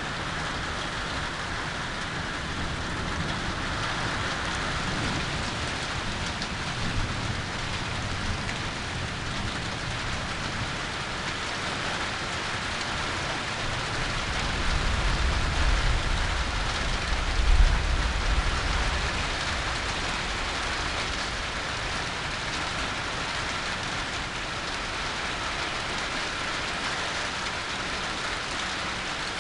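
Steady rain falling in a thunderstorm, with a low roll of thunder that swells a little past the middle, peaks briefly, then fades back into the rain.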